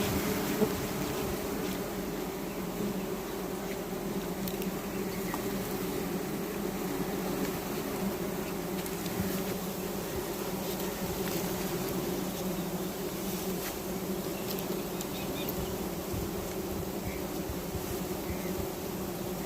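A swarm of wild honeybees buzzing as a steady, dense drone around their disturbed colony.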